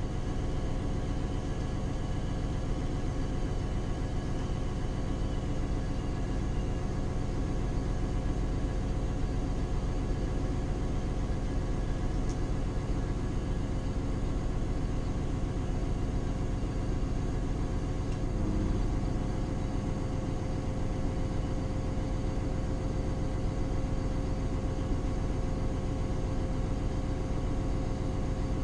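Diesel engine of an SNCF X 73500 railcar idling while stationary, heard from inside the driver's cab: a steady rumble with a constant hum.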